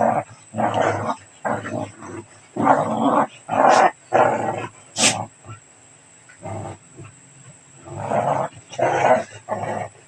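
Small dogs play-fighting, growling and snarling in short irregular bursts, with a lull in the middle.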